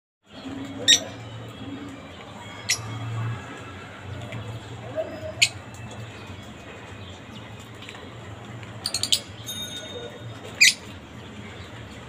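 Green parakeet giving about five short, sharp chirps a couple of seconds apart, over a low steady hum.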